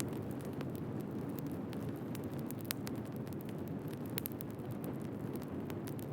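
Wood fire burning: a steady low rumble of flames with irregular crackles and pops from the burning firewood, a few sharper snaps among them.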